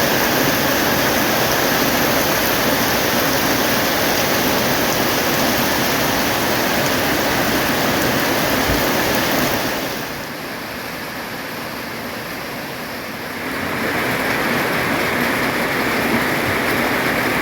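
Heavy rain pouring down steadily, a dense hiss of water. About ten seconds in it turns quieter and duller for a few seconds, then returns to full strength.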